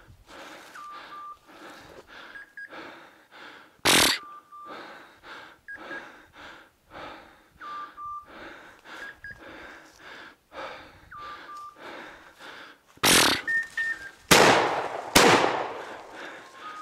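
Footsteps crunching through dry fallen leaves and brittle scrub at a steady walking pace, with heavy breathing. A sharp crack about four seconds in, and a cluster of much louder sudden bursts near the end.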